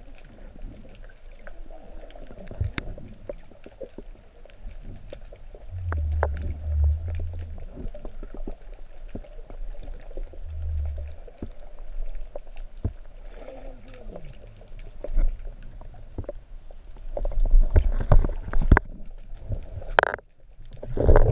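Underwater noise picked up by a camera mounted on a diver's speargun: many scattered clicks and knocks of the gear being handled, with low rumbles about six and ten seconds in. The noise grows louder and busier near the end, then drops out briefly.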